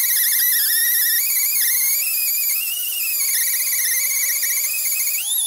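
Pneumatic die grinder with a small 'cookie' abrasive disc running against a metal plate: a steady high whine whose pitch wavers as the disc is pressed and eased. Near the end the pitch climbs briefly and drops back.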